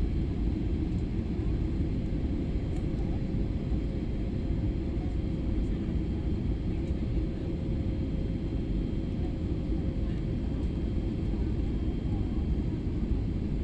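Steady low rumble of an airliner's engines and airflow as heard inside the passenger cabin, with a faint steady whine above it.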